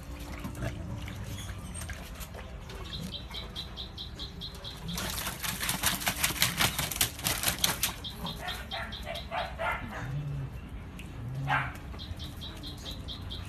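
Several dogs lapping water together from a metal bowl: a fast run of wet laps and splashes, densest in the middle.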